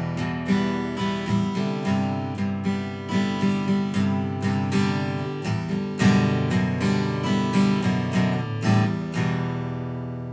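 Outro music: acoustic guitar, plucked and strummed at a lively pace, ending on a held chord that rings out near the end.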